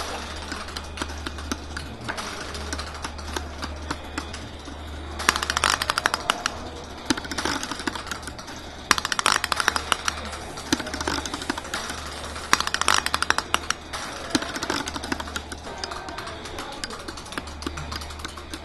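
A bank of plug-in electromechanical relays clicking in fast, irregular patterns, thickening into three dense clattering runs about five, nine and twelve seconds in, with scattered single clicks between. A steady low hum sits underneath.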